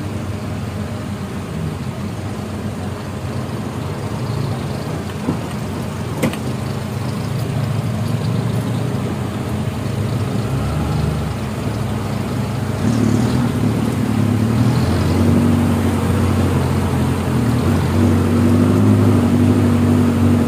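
Suzuki Jimny off-roaders' engines running as they crawl through a muddy stream crossing, with a single sharp knock about six seconds in. The engine hum grows louder and steadier about two-thirds of the way through.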